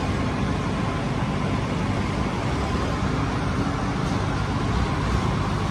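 Steady low rumbling background noise at an even level, with no distinct events.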